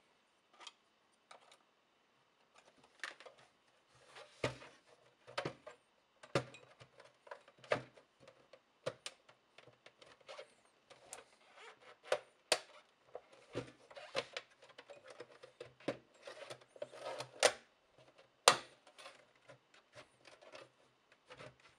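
Plastic snap-fit clips and front frame of an HP E3611A bench power supply clicking and knocking as they are pried and worked loose by hand, with rubbing and scraping of the sheet-metal cover between. The clicks come irregularly, about one every second, and the sharpest are in the latter half.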